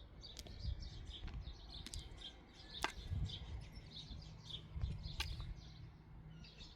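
Small birds chirping in quick, repeated short notes, with two sharp clicks, about three and five seconds in, and a low rumble underneath.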